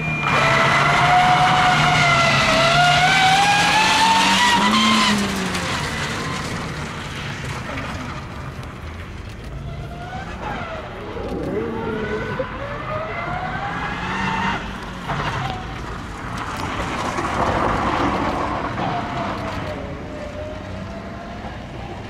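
Toyota HiAce rally van's engine revving hard as the van is driven around a gravel stage, its pitch climbing steeply. It is loudest over the first five seconds as the van passes close, then drops off, with two further quieter runs of rising revs as it carries on around the course.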